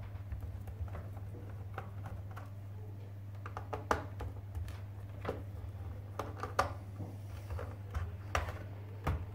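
Irregular small clicks and taps of a screwdriver working the screws of a laptop's plastic hard drive cover, the tip and hands knocking on the plastic base panel, over a steady low hum.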